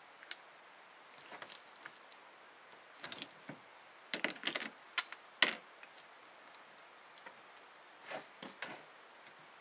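Scattered clicks and light knocks of tool and nailer parts being handled during disassembly of a pneumatic framing nailer, in small clusters, with a steady high insect chirr behind.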